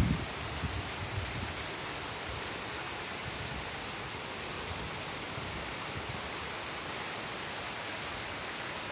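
Torrential rain from storm Isaías falling steadily, an even hiss, with a few low thumps in the first second.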